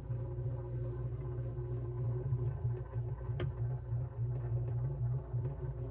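Motorised display turntable running, a steady low hum from its motor and gearing as it rotates, with one small click about halfway through.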